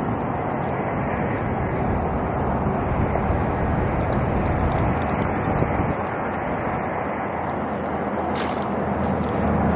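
Steady wind rumble on the microphone, with a low steady hum underneath.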